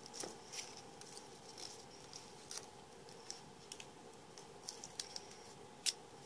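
Faint scattered clicks and crinkles of washi tape and a cardstock bookmark being handled, the tape pulled from its roll and pressed on, with one louder click near the end. A faint steady hum runs underneath.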